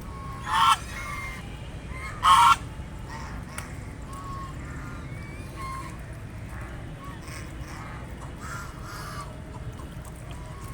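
Ducks quacking: two loud quacks about half a second and two seconds in, followed by many softer quacks, over a steady low background rumble.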